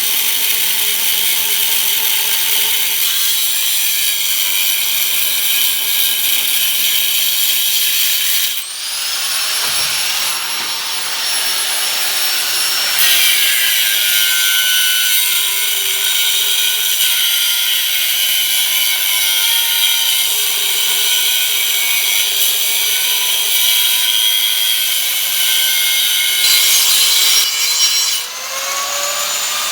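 Angle grinder cutting and grinding steel truck frame metal, running steadily and loudly. It briefly lets off twice, about a third of the way in and near the end, and each time whines back up to speed.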